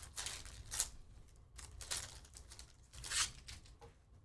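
Foil wrapper of a Panini Donruss Optic basketball card pack being torn open and crinkled by hand: several short ripping rustles.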